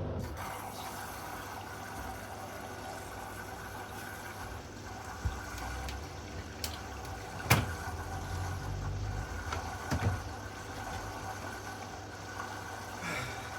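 Hoover Vision Dynamic washing machine draining: the drain pump hums steadily as water is pumped out. Three sharp knocks come from the machine, about five, seven and a half, and ten seconds in, the middle one the loudest.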